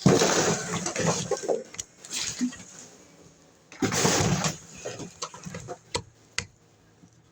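Rustling and handling noise in two loud stretches, the first at the start and the second about four seconds in, followed by a couple of sharp clicks near the end.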